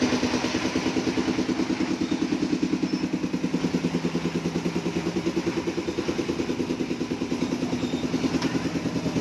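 Small engine of a park ride train running steadily, with a fast, even pulsing beat.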